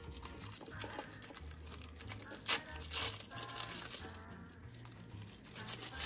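Protective wrapping sheet being pulled off a stainless steel knife block, crinkling and rustling, with a few sharper crackles.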